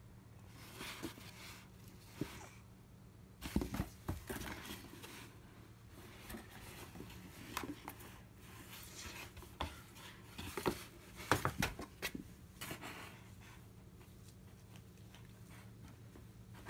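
Cardboard box rustling and scraping as a cat shifts about inside it and paws at its flaps, in scattered bursts with a few sharp taps.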